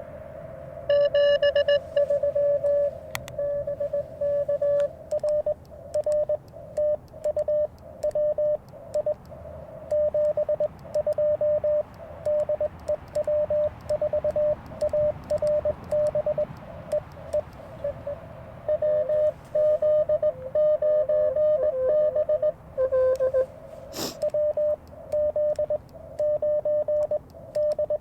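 Morse code from an Icom IC-705 transceiver: a single tone near 600 Hz keyed on and off in quick dots and dashes, over a steady hiss of band noise. A sharp click near the end.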